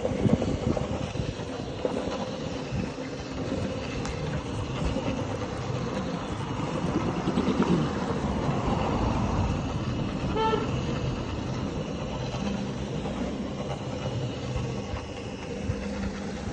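Rotary single-disc floor scrubber running, its spinning brush working shampoo foam into a rug: a steady motor hum under a wet scrubbing noise. A brief pitched tone sounds about ten seconds in.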